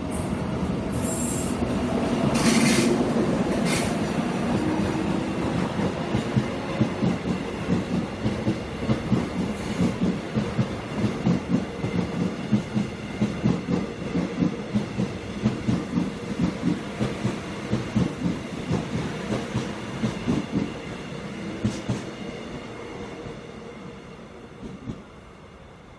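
Seoul Metro Line 1 electric train with a Mitsubishi GTO VVVF inverter pulling away. The inverter's tone rises over the first few seconds, with a few short bursts of high noise, then wheels clack steadily over the rail joints, fading as the train draws off.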